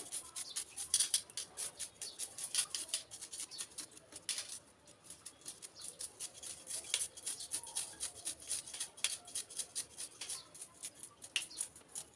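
Knife blade scraping the scales off a large whole fish on a wet concrete floor, in quick repeated strokes, several a second, with a short pause about five seconds in.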